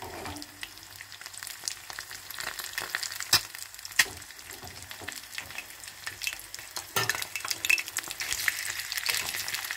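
Eggs frying in a shallow aluminium pan: steady sizzling with dense crackle and sharp pops of spitting fat, two louder pops a little after three and four seconds in. The crackle thickens over the last few seconds.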